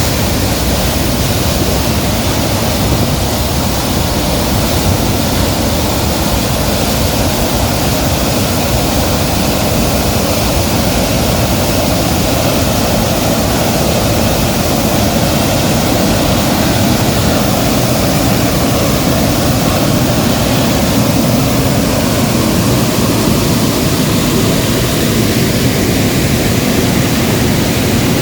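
Water released from a dam outlet churning and rushing into a canal: a loud, steady rush of water.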